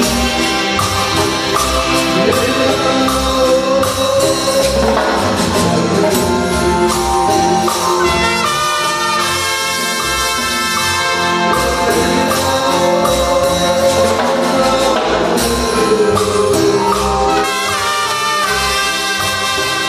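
Synthesized band music from the Caustic music app: trumpet-like brass lines over a steady beat.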